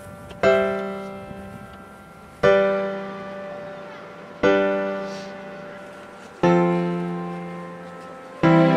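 Slow background piano music: a chord struck about every two seconds, each left to ring and fade before the next.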